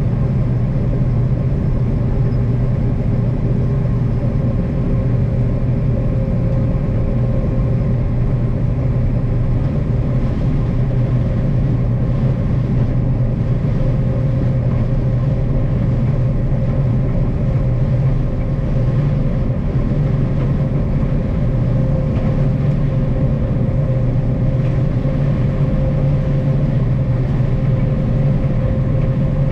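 Combine harvester running steadily: a continuous low engine drone with a steady higher hum that does not change.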